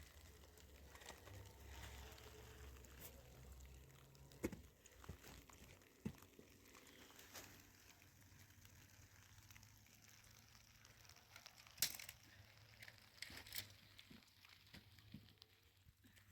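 Near silence with light rustling and a few faint, sharp clicks, the loudest about four and a half seconds in and again near twelve seconds.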